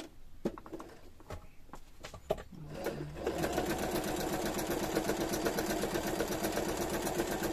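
Electric domestic sewing machine sewing a trial zigzag stitch on a scrap of fabric, starting about three seconds in and then running steadily with a fast, even needle rhythm. Before it starts there are only a few light clicks.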